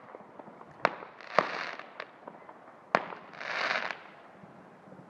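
Fireworks going off: three sharp bangs about a second in, a second and a half in and three seconds in, the second and third each followed by about half a second of crackling.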